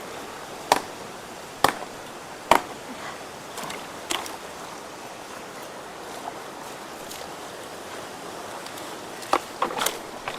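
Steady rush of water flowing through a culvert, with sharp knocks and clatters of sticks and woody debris: three distinct knocks in the first few seconds, a couple of softer ones, then a quick cluster near the end.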